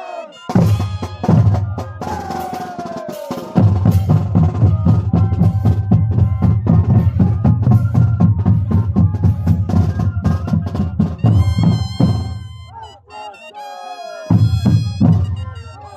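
Moseñada band music: moseño cane flutes playing over bass drums and snare drums beating a fast, steady rhythm, with short breaks in the playing near the start and again about three-quarters of the way through.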